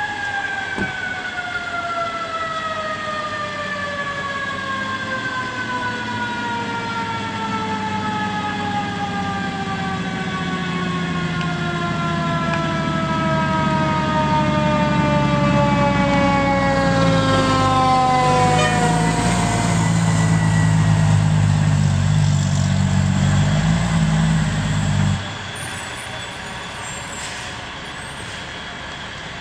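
Fire engine siren winding down in one long, slow falling whine, over the low steady running of the apparatus's engine. The engine noise grows louder and then cuts off suddenly about 25 seconds in.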